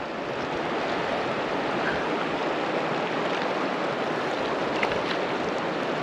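Steady rush of flowing river water from the South Platte's current, with a couple of faint ticks about five seconds in.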